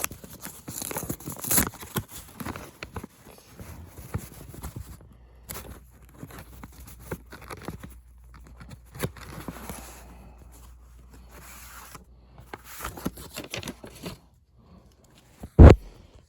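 Paper rustling and tearing as a bundle of crisp new $2 bills is opened and handled, with one loud thump near the end.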